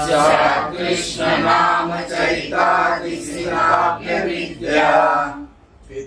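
A group of men's and women's voices chanting a line of a Sanskrit verse together to a simple melody, in several sung phrases that break off shortly before the end.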